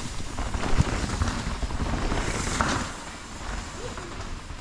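Wind rumbling on the microphone and a mountain bike rolling over the trail. The noise eases a little about three seconds in.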